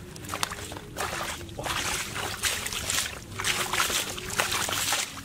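Bare feet and hands sloshing and splashing through shallow muddy water, in a run of irregular surges.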